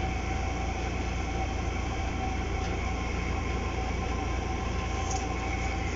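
Steady low hum and hiss of background room noise, even throughout, with no distinct events.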